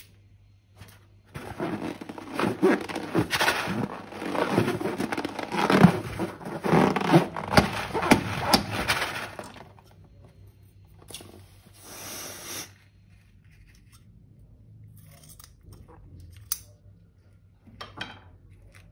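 A hand squishes and stirs foamy slime mixed with plastic pearl beads in a glass bowl: a dense run of wet crackles and crunches for about eight seconds. After a pause comes a short scraping cut of scissors through a rubber balloon, and a few faint squeezes near the end.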